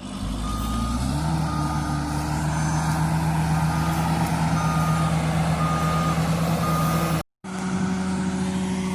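Heavy earthmoving machine's engine running under load, its pitch climbing about a second in, while its reversing alarm beeps about once a second. Near the end the sound cuts and an engine carries on at a steady, different pitch.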